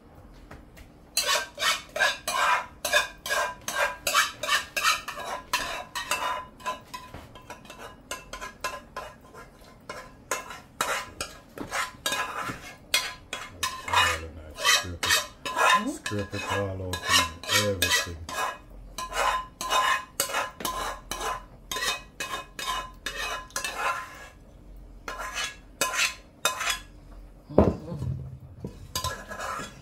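Metal spoon scraping and knocking against the inside of a stainless steel pot while scooping out barbecue sauce: many quick strokes, each with a slight metallic ring. A heavier knock comes near the end as the pot is set down.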